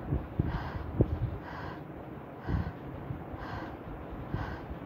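Thick slime squelching, with soft wet pops and clicks as it is poured onto a board and poked with fingers.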